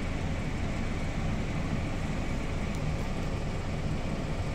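Steady low drone of diesel engines: a Hitachi Zaxis 210 LC tracked excavator working its boom and bucket, together with the running engine of the Valtra N143 HiTech tractor.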